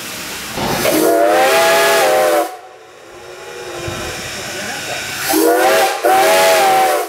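Whistle of Strasburg Rail Road steam locomotive No. 90 sounding two long blasts as the train starts moving, a loud chord of several tones that cuts off sharply each time, with steam hissing between the blasts.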